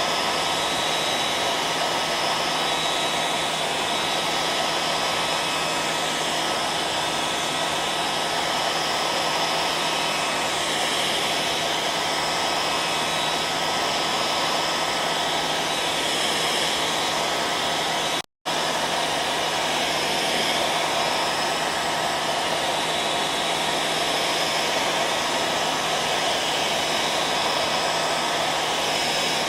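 Hair dryer running continuously: a steady rush of blown air over a low motor hum. The sound cuts out completely for a split second a little past halfway, then resumes unchanged.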